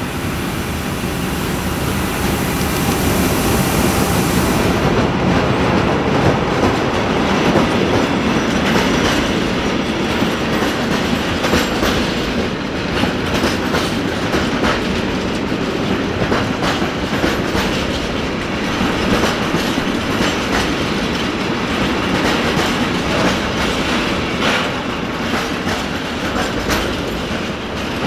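A freight train of tank wagons hauled by a DB class 265 Voith Gravita diesel-hydraulic locomotive passing close by. The locomotive comes first, with a loud hiss that stops about five seconds in. Then the wagons roll past, their wheels clacking over the rail joints.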